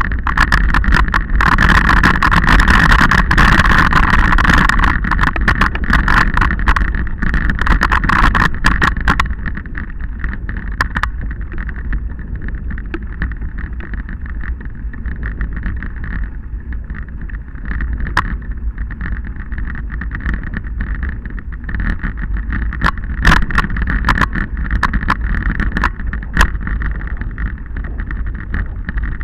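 Wind rushing over a ride-mounted camera's microphone, with the rumble and rattle of riding over a rough, stony dirt track and scattered sharp clicks and knocks from the bumps. A steady high hum sits over it for the first eight seconds or so, then the whole sound drops a little in level.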